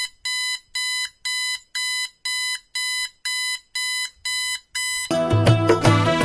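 Electronic alarm beeping, about two short identical beeps a second, around ten in all. About five seconds in the beeping stops and loud music with a beat comes in.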